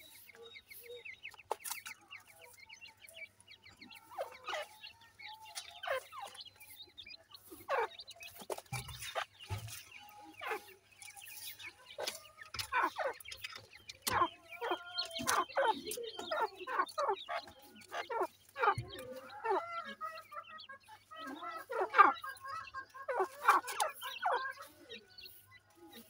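Gray francolin hen and chicks calling: a run of short clucking notes that grows busier and louder in the second half, with thin high peeps.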